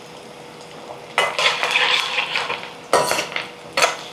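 Bitter gourd pieces sizzling as they deep-fry in hot oil on high flame. They are stirred in the pan a few times, with scraping clatter about a second in and short strokes again near the end.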